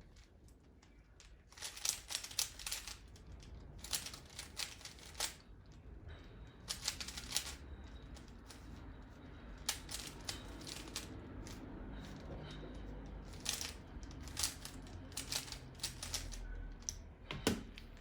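Plastic Rubik's cube being turned by hand while it is solved: runs of quick clicking layer turns, each run lasting a second or two, with short pauses between.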